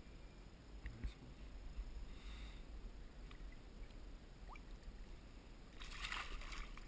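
Channel catfish splashing in shallow pond water as it is let go, a short burst of splashing near the end, over a steady low rumble.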